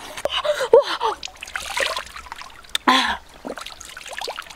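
Coconut water trickling and splashing as a woman drinks from a freshly opened green coconut, with short wordless voice sounds in the first second and again about three seconds in.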